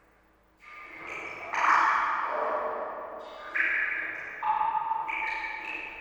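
Water drops falling into water, about five pitched plinks at irregular intervals, each ringing on and fading slowly.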